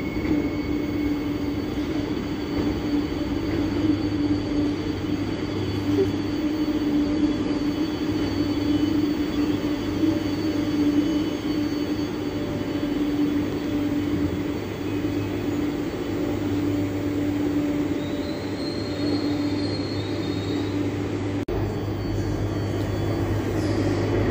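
A train at a station platform humming steadily and low. After about 21 seconds a deeper rumble builds and grows louder as a Vossloh G 1000 diesel locomotive approaches.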